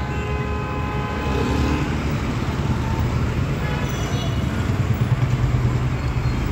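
Heavy trucks running and passing close by on a road: a steady low engine and traffic rumble that grows stronger in the last couple of seconds.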